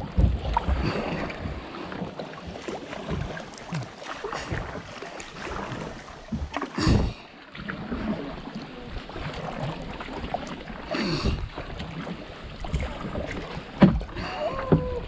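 Kayak paddles dipping and splashing in river water at an uneven pace, with sharper splashes about seven and eleven seconds in.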